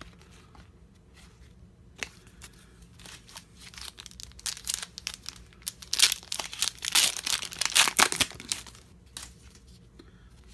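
The foil wrapper of a 1996 Upper Deck SP hockey card pack being torn open and crinkled in the hands. The rapid crackling starts about two seconds in and is loudest past the middle.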